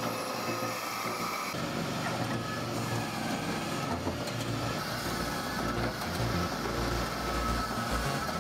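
Hakki Pilke firewood processor running with a steady mechanical noise. Its low rumble grows heavier about one and a half seconds in.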